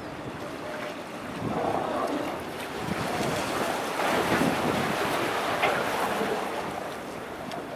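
Wind buffeting the microphone over sea water washing and lapping, swelling louder through the middle, with a few faint wavering tones mixed in.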